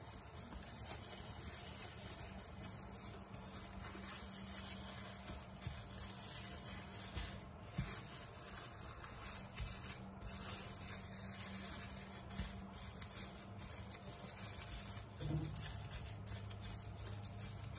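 Plastic freezer bag crinkling and rubbing under hands as a biscuit-cake log is rolled and shaped inside it and the bag's end twisted, with a few soft knocks against the countertop.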